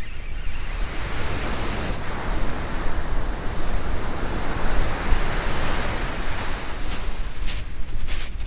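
Sea surf washing on a shingle beach, a rushing sound that swells and fades over a few seconds. Near the end, crunching footsteps on the shingle.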